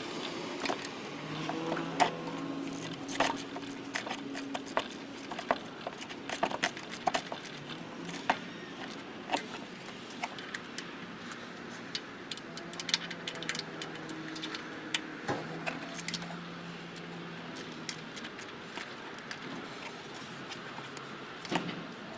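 Hand tools clicking and clinking against metal as the thermostat housing bolts are fitted on a 4.8 L Vortec V8, in irregular sharp ticks with quicker runs of clicks now and then.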